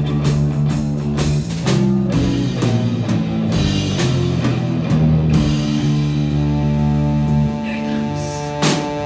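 Live rock band playing on amplified instruments: electric guitars and bass held over a drum kit keeping a steady beat.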